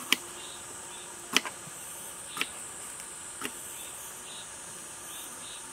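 Kitchen knife cutting through a red bell pepper onto a wooden cutting board: four sharp cuts about a second apart, the first two the loudest. A steady high chirring of insects continues underneath.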